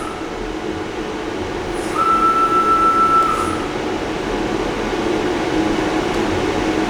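Legacy Artisan 5-axis CNC router rotating its A axis: a steady motor-and-drive hum, with a high, even whine that comes in about two seconds in and stops a little over a second later.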